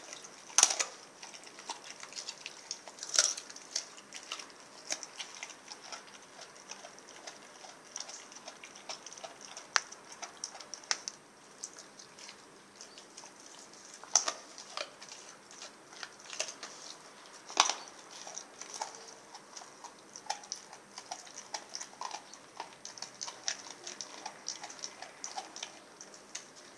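Rottweiler chewing on a frozen raw whole turkey: irregular wet crunching and cracking of meat and bone, with a few louder cracks.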